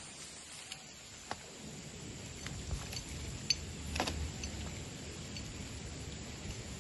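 Scattered light ticks and small plops as a topwater frog lure is twitched across swamp water, over a faint low rumble.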